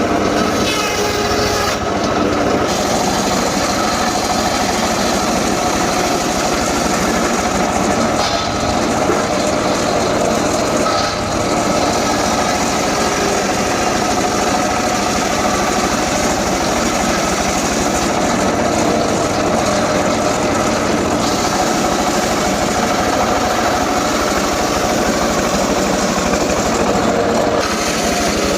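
An engine-driven saw running steadily under load while cutting gmelina wood.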